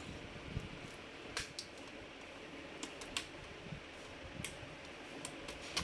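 Plastic screen bezel of a Dell Latitude E6440 laptop being pried off by hand: a scattering of light, irregular clicks as its snap clips come loose.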